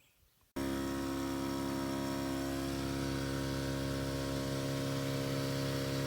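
Near silence, then about half a second in a steady, even hum with several layered tones starts abruptly and holds unchanged.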